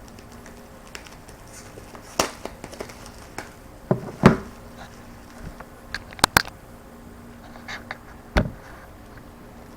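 Tape being picked at and peeled off a taped accessory package, heard as scattered clicks, taps and short crinkles of plastic and cardboard, with a few sharper knocks about two, four, six and eight seconds in.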